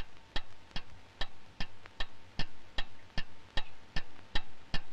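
Mechanical clockwork timer ticking steadily, about two and a half sharp ticks a second.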